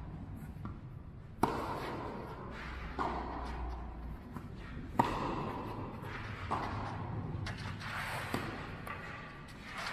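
Tennis rally on a clay court: a racket strikes the ball five times, about every one and a half to two seconds, between two players, each hit ringing briefly in the hall. The hits at about a second and a half and at five seconds are the loudest.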